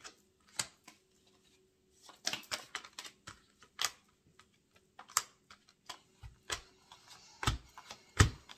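Oracle cards being handled and laid down on a table: irregular taps and clicks, with a few heavier knocks near the end.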